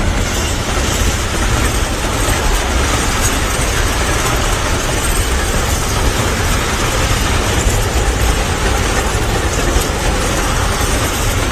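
Freight train passing, a loud steady rumble of wheels on the rails.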